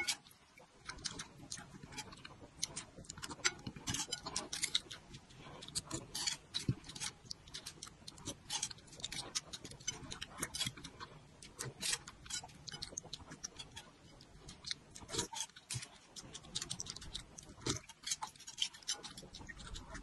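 Close-miked eating sounds: slurping chili-oil broth and chewing dumplings, a dense, irregular run of wet mouth clicks.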